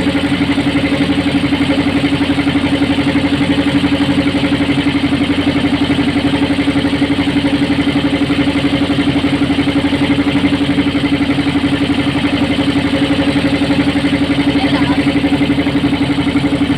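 Motorboat engine running loud and steady at an even speed, a fast, regular throb that does not change.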